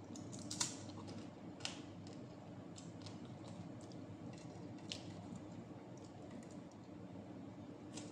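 Quiet sounds of eating by hand: scattered small sharp clicks and smacks from chewing and fingers picking at food on a plate, the loudest about half a second in, over a low steady hum.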